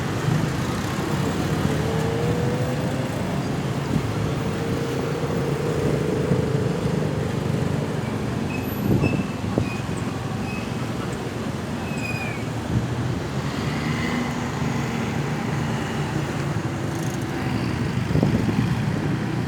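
Steady road traffic noise: vehicle engines and tyres running continuously, with one engine note rising slightly in the first few seconds and a few brief high squeaks near the middle.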